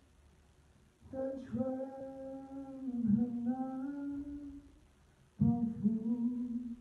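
A man singing or humming into a handheld microphone, wordless long held notes in two phrases, with a short pause between them.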